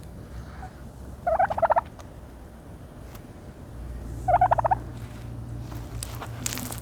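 Turkey giving two short, rapidly pulsed rattling calls about three seconds apart, each about half a second long, while dust bathing in dirt.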